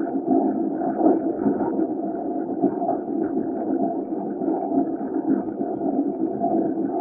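LSWR O2 class 0-4-4 tank locomotive W24 'Calbourne' running along the line, heard from its side: a steady rumble of the moving engine mixed with rushing wind noise.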